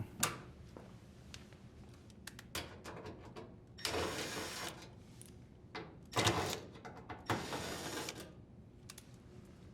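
Cordless drill driver with a Phillips bit running in short bursts, twice at length, to back out screws from a dryer's sheet-metal front panel, with light clicks and taps between the runs.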